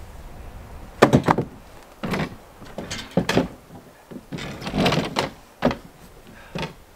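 Metal chimney cap being wrenched and knocked against the top of a stovepipe to work it off its crimped fitting: about half a dozen separate clunks and scrapes of metal.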